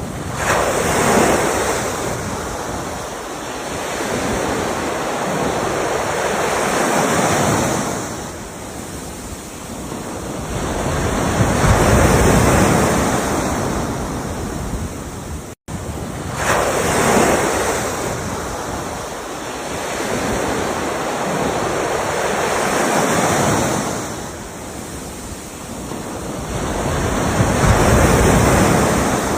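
Ocean waves breaking and washing ashore in slow surges, each swelling and fading over about five to six seconds, with a brief dropout in the sound about halfway through.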